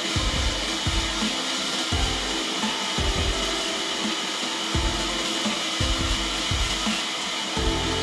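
A large band sawmill running with a steady whirring hiss, its blade not cutting. Music with a low bass note about once a second plays over it.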